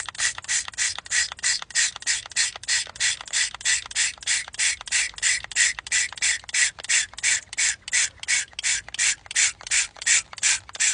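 Warheads Super Sour Spray candy pump bottle being pumped over and over into a glass: a steady run of short spritzes, about four a second.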